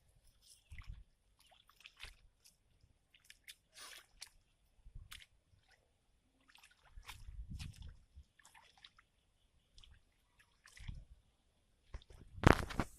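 Scattered drips, squishes and small splashes of water and mud, irregular and fairly faint, with one loud splash near the end.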